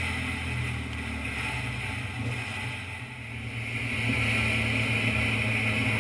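On-board sound of a Kawasaki Versys motorcycle riding along: a steady engine hum under a hiss of wind and road noise. About four seconds in, the sound gets louder and the hiss grows stronger.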